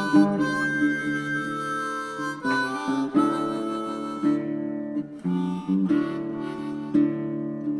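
Background music of harmonica over acoustic guitar, in a blues style.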